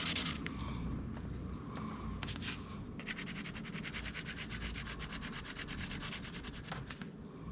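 Pencil scratching on paper in quick back-and-forth shading strokes, a fine, even rasp that is most regular in the second half.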